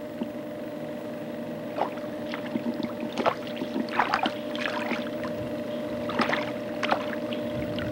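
Water splashing and sloshing in short, irregular bursts as a small hooked trout thrashes at the surface and is handled in the stream. A steady low hum runs underneath.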